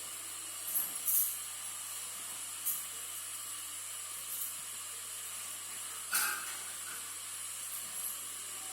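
Steady electronic hiss of the recording, broken by a few short, faint noises, the most noticeable a little after six seconds in.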